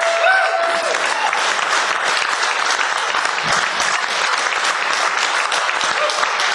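Audience applauding steadily after a spoken-word poem, with a brief high-pitched whoop from the crowd in the first second.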